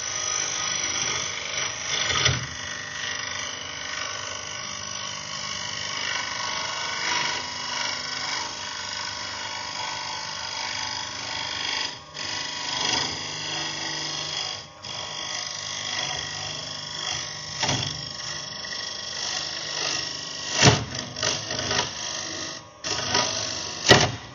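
Wood lathe turning a small hardwood bowl while a cutting tool held in an articulating arm takes a cut: a steady scraping hiss over the lathe's hum. There are a few sharp knocks as the tool catches, one about two seconds in and several near the end.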